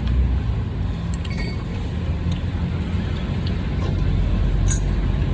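Steady low rumble of road traffic, with a few light clinks and a short sharp click near the end.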